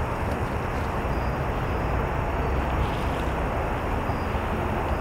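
Steady low outdoor background rumble. A few faint rustles of dry leaf litter come as a snake hook nudges a coiled copperhead across the ground, once just after the start and again around the middle.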